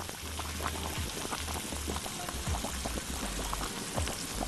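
A pot of maqluba rice at a rolling boil, the cooking liquid bubbling and popping steadily around the rice as its surface is pressed level with a silicone spatula.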